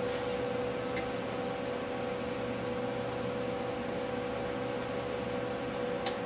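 Steady hum and hiss of bench electronics running, with a steady pitched tone through it. A faint click about a second in and another near the end.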